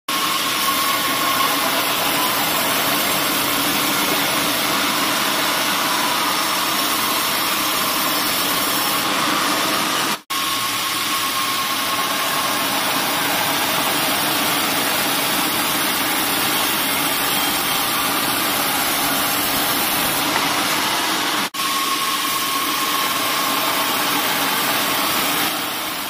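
Band sawmill running, its blade cutting lengthwise through a log with a steady, loud rushing sound. The sound drops out briefly twice, once about ten seconds in and again about twenty-one seconds in.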